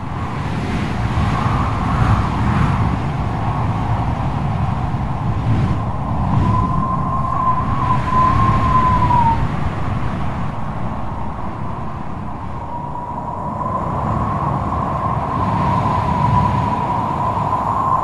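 Wind and heavy sea surf in a steady low rumble, with a thin wavering whine that comes in for a few seconds near the middle and again through the second half.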